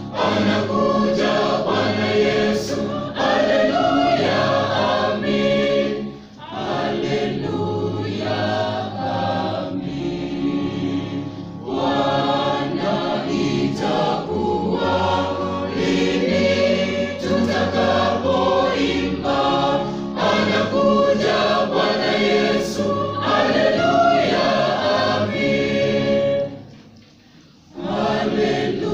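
Mixed church choir of men's and women's voices singing a hymn in parts, with a brief breath about six seconds in and a short pause near the end before they start again.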